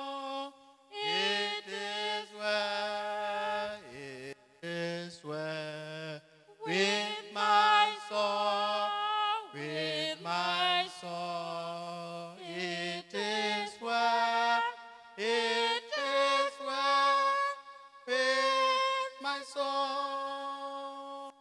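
Slow, solemn singing, a voice holding long notes phrase after phrase with short breaks between them, as at a funeral hymn.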